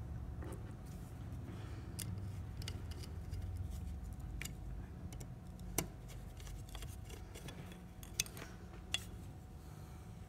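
Small metallic clicks and ticks of a screwdriver working the tiny screws that hold an optical encoder's reader in place, a few sharp clicks standing out over a low steady hum.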